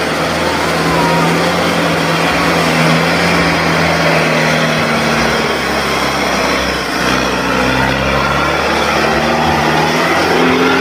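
Engine of a modified off-road pickup running under load as it crawls over rocks, its pitch stepping up and down a few times.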